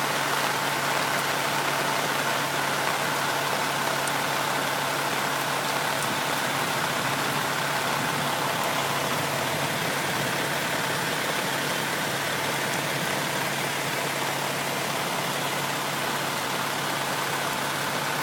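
Steady hiss of rain and floodwater with a vehicle engine idling underneath.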